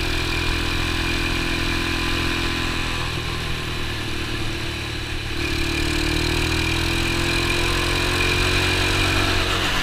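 X19 super pocket bike's small engine running under way. It eases off about three seconds in, then pulls again with its pitch slowly rising through the second half.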